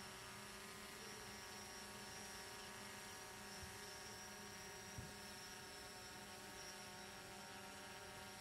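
Faint steady hum made of many fixed tones, with a soft thump about five seconds in.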